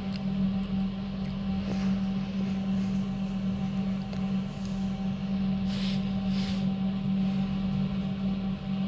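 Running TK Elevator passenger car in travel between floors: a steady low hum with a fainter higher tone over a low rumble, with two brief soft hisses about six seconds in.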